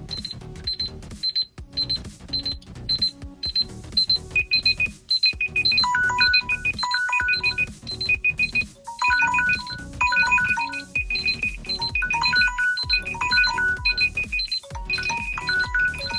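Smartphone alarm ringtone: rapid, evenly repeated high beeps, joined about four seconds in and again about six seconds in by beeping tones at lower pitches that build into a repeating electronic melody over a pulsing low beat.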